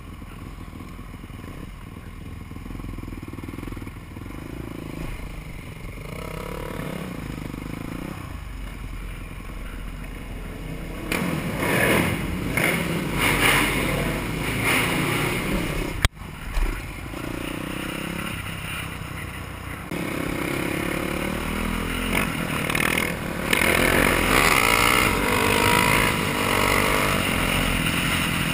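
Supermoto motorcycle engine pulling away and climbing in pitch through the gears, heard from a camera on the moving bike, with wind rush building as speed rises. It grows louder about eleven seconds in and again near the end, with one sharp click in the middle.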